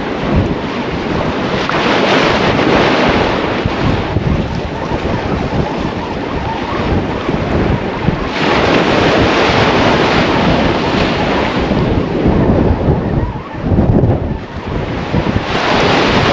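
Small sea waves breaking and washing up a beach, swelling three times several seconds apart, with wind buffeting the microphone.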